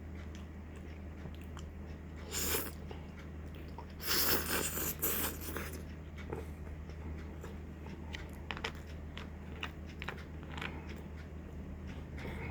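A person eating, with chewing and mouth sounds, two louder noisy bursts a few seconds in and small clicks after, over a steady low electrical hum.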